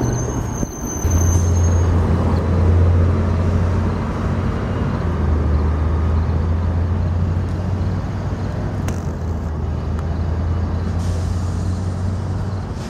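Diesel locomotive engine running with a steady low drone. A brief high-pitched squeal sounds at the start.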